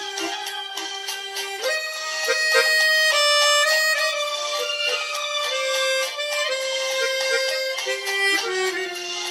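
Chromatic harmonica playing a slow melody of long held notes, rising in pitch about a second and a half in.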